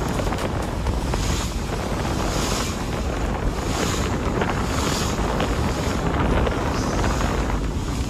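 Wind buffeting the microphone over the rush of sea water around a boat, a steady noise with a heavy low rumble and a hiss that swells about once a second.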